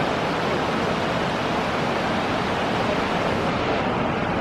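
Steady, even rush of falling water from waterfalls, a constant roar without changes in level.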